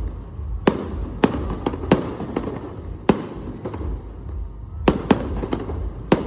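Aerial fireworks going off: about eight sharp bangs at irregular spacing, some in quick pairs, over a continuous low rumble from the display.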